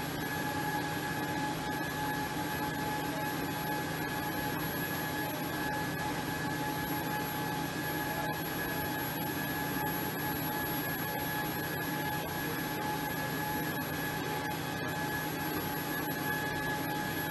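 Aircraft gas turbine running steadily on the ground: a constant high whine over a rushing hiss.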